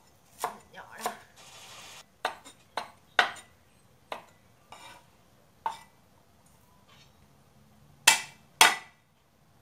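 Cleaver chopping on a wooden cutting board: single, irregular knocks as spring onions are cut. Near the end come two louder chops about half a second apart, on garlic cloves.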